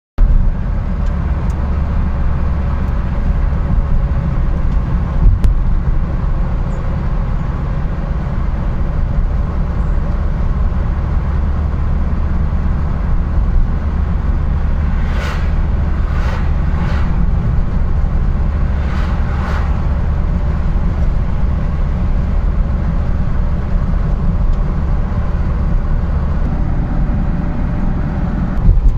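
Steady low rumble of engine and tyres heard from inside a moving car. About halfway through come several brief whooshes of oncoming vehicles passing.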